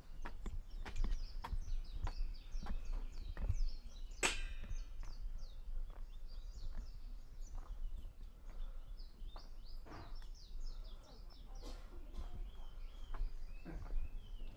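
Footsteps on a hillside path, about two steps a second, with small birds chirping in many short falling notes around them. One sharper, louder knock comes about four seconds in.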